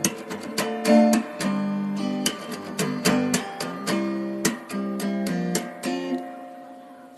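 Background music on acoustic guitar: a run of picked notes and strummed chords, the last chord left ringing and fading away near the end.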